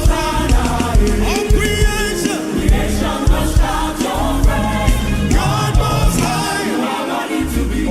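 Live gospel worship music: a choir singing a chant in harmony over a band, with a steady kick-drum beat.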